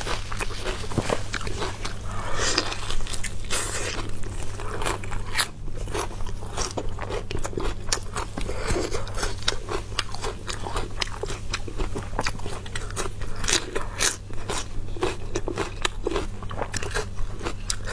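Close-miked eating of braised pork knuckle: steady chewing and biting with a dense run of short, sharp mouth clicks, over a faint steady low hum.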